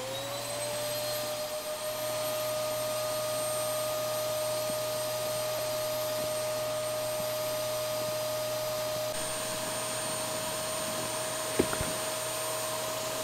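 Electric motor of a PATIO tent trailer's powered lift, raising and unfolding the tent. It is a whine that spins up at the start and then runs steady at one pitch, with a single sharp knock about eleven and a half seconds in.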